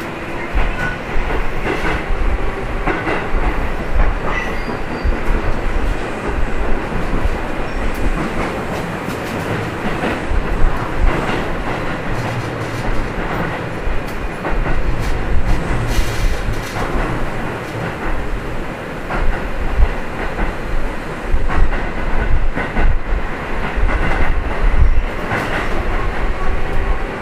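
Keio 7000 series field-chopper electric train running, heard from inside the car: a steady rumble of wheels on rail, with repeated clicks and knocks over rail joints.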